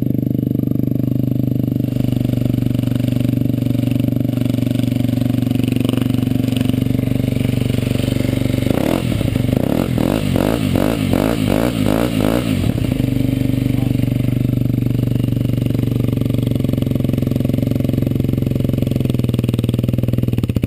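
Derbi DRD 125 SM's 125 cc single-cylinder engine idling through a Turbokit Road X exhaust with a homemade dB killer fitted. From about nine seconds in, it is blipped rapidly, about two to three revs a second for some four seconds, then settles back to idle.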